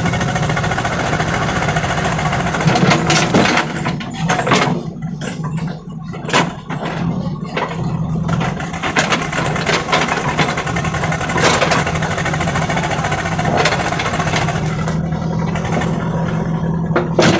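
A JCB 3DX backhoe loader's diesel engine running steadily while it digs, with several short, sharp knocks scattered through.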